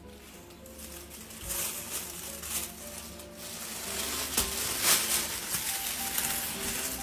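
Thin plastic shopping bag crinkling and rustling as it is gripped by the handles and lifted with a cat inside, in irregular crackles that grow louder after about a second and a half.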